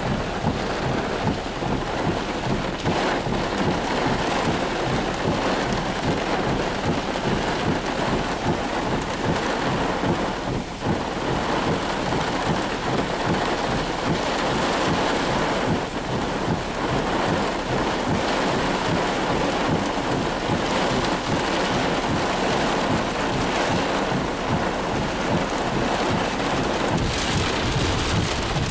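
Heavy thunderstorm downpour: dense, steady rain noise with no break.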